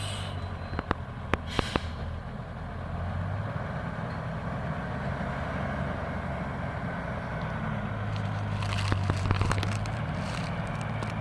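Logging truck's engine running at a steady low note, with a few sharp knocks between one and two seconds in and short bursts of hiss near the start and again from about eight to ten seconds in.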